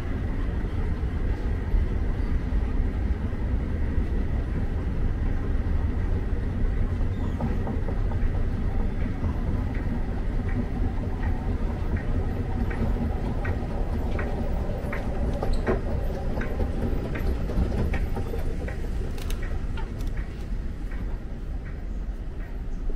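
Steady low rumble of a moving escalator in a railway station, ridden up to the platform. About ten seconds in, a light regular clicking starts, roughly every three-quarters of a second, and it stops shortly before the end.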